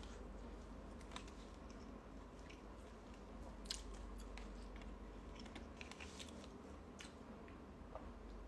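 Faint close-up handling noises: scattered small clicks and crackles, with one sharper click a little before the middle and a cluster of crackles shortly before a plastic water bottle is raised to drink.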